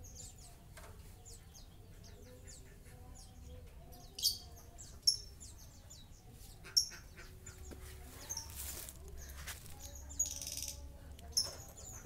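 Lovebird in its cage giving short, sharp, high chirps, a handful spread a second or more apart, with two brief rustles of movement in the second half.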